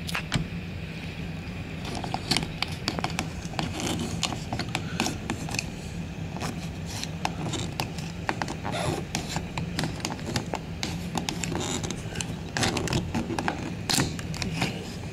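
Irregular clicks and scrapes of a plastic card being worked into the gap between a door and its frame against a knob lock's spring latch, trying to slide the latch back. Clusters of quick clicks come a couple of seconds in, again around the middle, and near the end.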